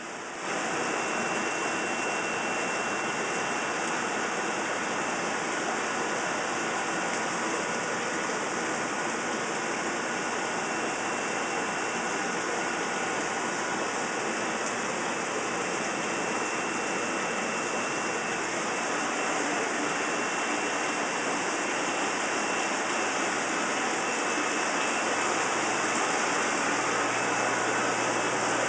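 Steady rushing water noise of aquarium filtration and aeration, with a faint high whine running through it.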